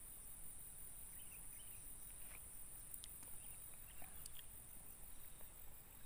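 Faint insect chorus, a steady high-pitched hum, with a few soft bird chirps and light ticks.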